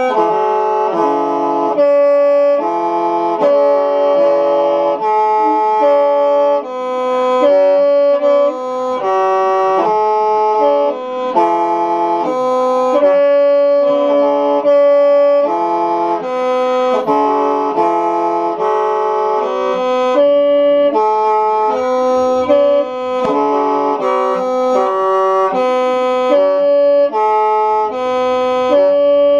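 Hmong qeej, a bamboo free-reed mouth organ, being played: several reed pipes sound together in chords that change every half second or so over one held note.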